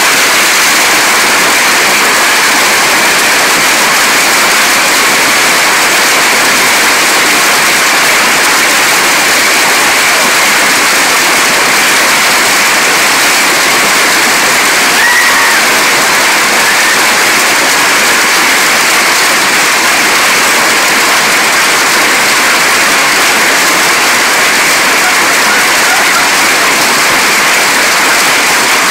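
Hailstorm: hailstones pelting down steadily on the lawn and the roof overhead, a loud, even roar that does not let up.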